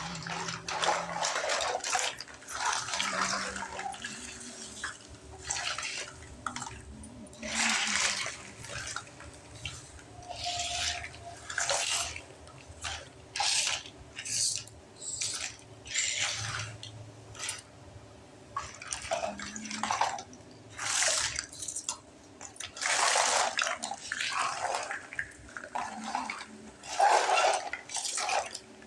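Water splashing and dribbling into a miniature toy kitchen sink in a series of short, irregular bursts, about one every second or two.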